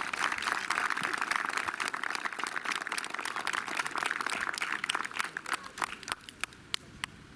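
Crowd applauding, a dense patter of many hands that thins out about six seconds in to a few scattered claps.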